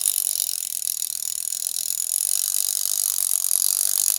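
Tiny travel alarm clock's alarm mechanism running after release, its hammer buzzing rapidly in a steady high-pitched rattle as the freshly wound alarm mainspring unwinds toward the stop work.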